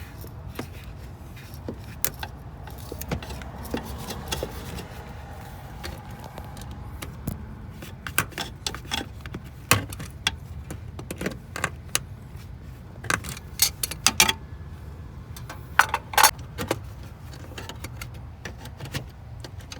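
Irregular metallic clicks and clinks of hand tools and a hose clamp as a coolant hose is worked back onto a car's coolant expansion tank and its clamp is fitted. The clicks come thickest in the second half, over a steady low hum.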